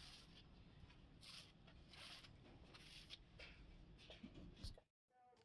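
Faint scraping strokes as a hand works the edge of a freshly cast plaster ceiling panel, about one or two short scrapes a second over a low rumble. The sound cuts off abruptly near the end.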